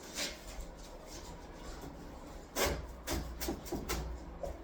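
Rubbing and scraping as a foam shower pan is pressed and worked down into its mortar bed, with a sharp knock about two and a half seconds in followed by several short rubbing strokes.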